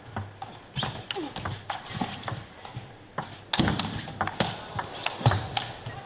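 Table tennis rally: the celluloid ball clicking off the paddles and bouncing on the table in an uneven run of sharp ticks, two hits in the second half louder than the rest.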